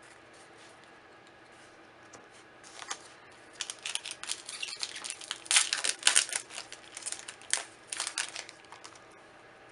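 Crinkling and rustling of a foil booster-pack wrapper and trading cards being handled, in a run of sharp crackly bursts from about three seconds in, loudest in the middle and dying away near the end.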